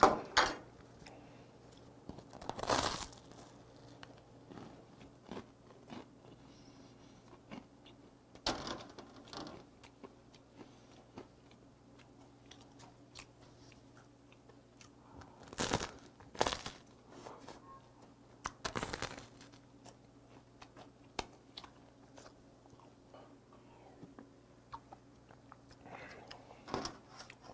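Crusty baguette crust crunching as it is bitten and chewed, in sudden loud crunches a few seconds apart with quieter chewing between.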